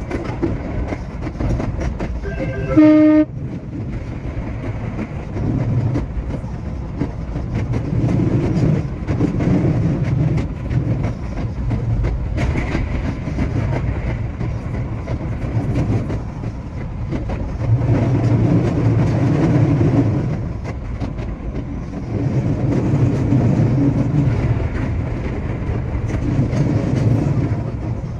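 A 227 series electric train is running, heard from the cab: a steady rumble of wheels and motors that swells and fades. About three seconds in comes one short blast of the train's horn.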